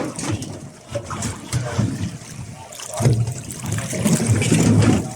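Water trickling and sloshing against a small boat, louder and fuller over the last couple of seconds.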